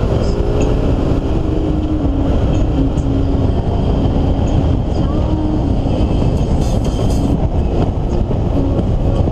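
Car engine and tyre noise heard from inside the cabin while driving on a wet road: a steady low rumble, with the engine note stepping in pitch in the first few seconds. A brief hiss about seven seconds in.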